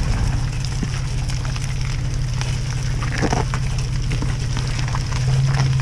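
SUV engine running low and steady at crawling speed on a rocky off-road trail, getting a little louder near the end, with scattered crackles and knocks from the tyres and body over rocks.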